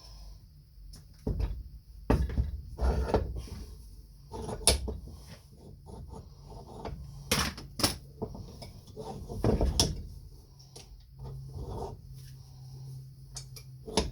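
Tools and metal parts being handled and set down: irregular knocks and clunks, with a faint steady low hum starting about three-quarters of the way through.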